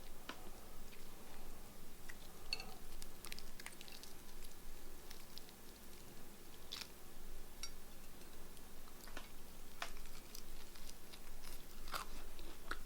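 A person biting into and chewing crispy fried chicken, with irregular crunches from the fried coating.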